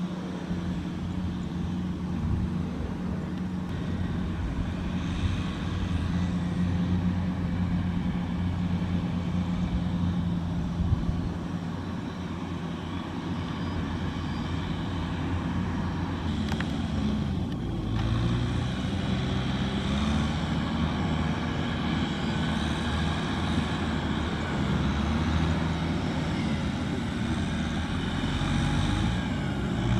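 Kubota tractor's diesel engine running under load, pulling a trailer full of rice sacks through wet field mud. Its pitch shifts up and down a little past the middle, then settles again.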